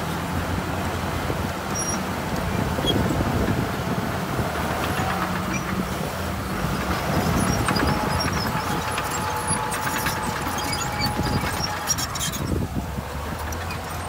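Diesel engine of heavy earthmoving equipment running steadily, with scattered short metallic clicks and knocks near the end.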